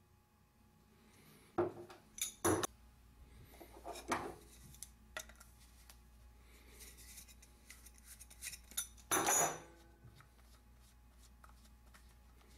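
Pliers and small metal parts clinking and scraping while the hex nut and castle nut are worked off a drywall taper's plunger: a few sharp clinks about two seconds in, another about four seconds in, and a longer, louder clatter about nine seconds in.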